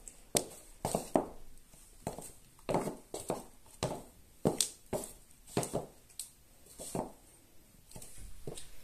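Stiletto-heeled pumps clicking on a wooden floor while walking: an uneven series of sharp heel taps, about one or two a second.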